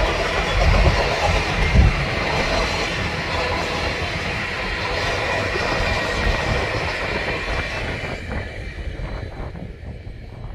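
Union Pacific passenger cars rolling past at speed, with wheels clattering over the rail joints. The rumble fades away near the end as the last car moves off.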